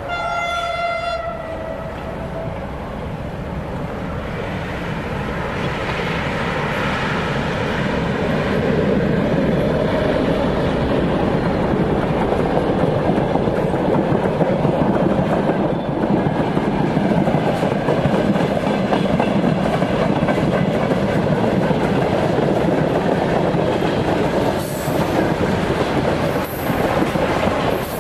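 A train horn sounds once for about two seconds as two ST40s diesel locomotives approach. They then pass, and a long broad-gauge freight train of tank wagons rolls by, the noise of the wheels and wagons growing louder over the first several seconds and then staying steady.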